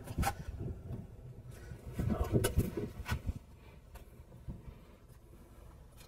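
Caulking gun being worked while glue is laid along a tub seam: a few sharp clicks and scratchy rustling, busiest about two to three seconds in.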